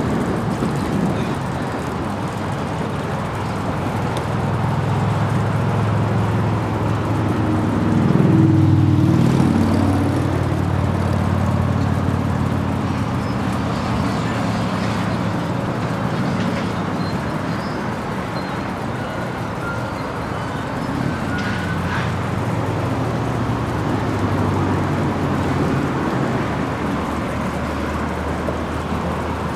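Urban road traffic: motor vehicles running and passing steadily. About eight seconds in, one engine's pitch dips and climbs again as it gets loudest.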